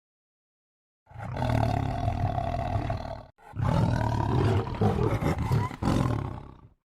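Tiger roar sound effect: two long growling roars about a second in, the first about two seconds long, the second, after a brief break, about three seconds long.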